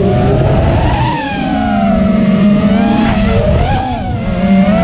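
Four brushless motors (Xing Camo 2208 2450KV) of an FPV freestyle quadcopter whining with the throttle, the pitch rising about a second in, dipping near the end and climbing again, over a rush of air noise.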